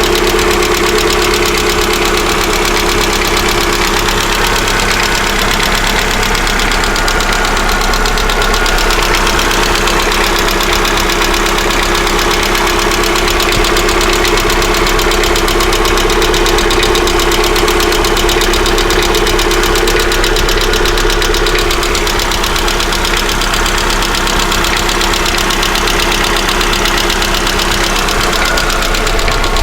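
Lada Vesta's 1.6-litre four-cylinder engine idling steadily with a rapid, even ticking knock from its hydraulic valve lifters, the sign of worn lifters.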